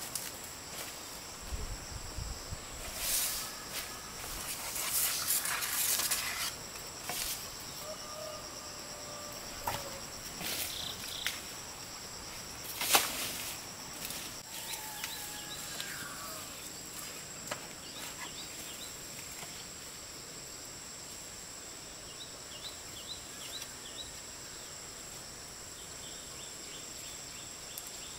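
Steady high-pitched drone of insects such as cicadas or crickets, with a few short rustling noises in the first half and some faint bird calls.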